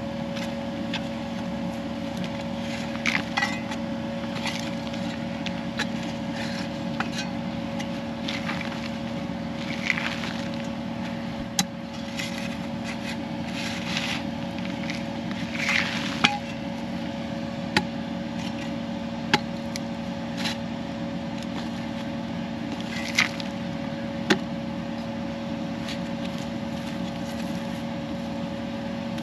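Kubota KX080 excavator's diesel engine running steadily, with scattered short scrapes and clinks as the toothed bucket scratches through hard ground.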